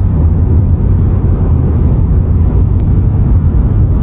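Cabin noise of a refreshed Tesla Model Y at highway speed: a loud, steady low road and wind rumble with a faint, thin, high whistle running through it. The whistle is like wind leaking past the front door seal near the mirror, a sign of air getting through a gap there.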